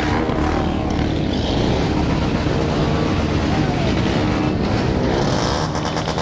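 Many motorcycle engines running and revving together, with a fast crackling rattle of exhaust noise near the end.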